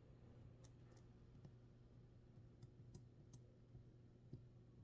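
Near silence with a handful of faint, scattered clicks over a low steady hum.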